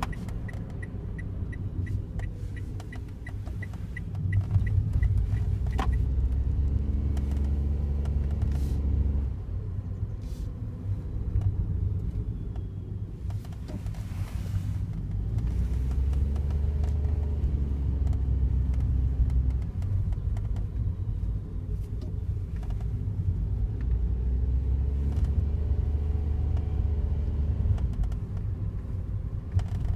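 Daihatsu Wake kei car driving: engine and road rumble that swells into heavier low rumble three times, for several seconds each, with a faint whine rising and falling over it. A rapid, regular light ticking runs through the first several seconds.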